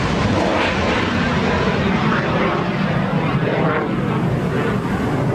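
Exhaust noise of a Patriot surface-to-air missile's solid-fuel rocket motor as the missile climbs away after launch: a loud, steady, crackling rush.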